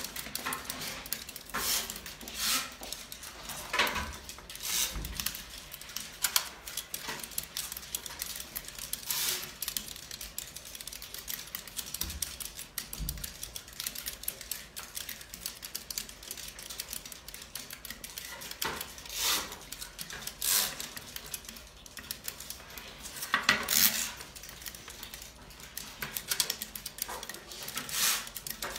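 Rapid, irregular clicking of soroban (Japanese abacus) beads flicked up and down by fingers, from several abacuses at once, with louder clusters of clicks every few seconds.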